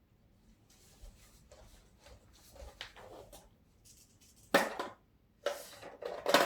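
Light rustling and small knocks, then a sharp clack about four and a half seconds in and a burst of clattering near the end: small parts and containers being handled while someone rummages for spare bearings.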